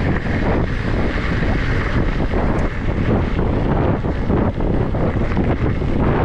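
Wind buffeting an action camera's microphone over the rumble and rattle of a mountain bike riding fast on a gravel road.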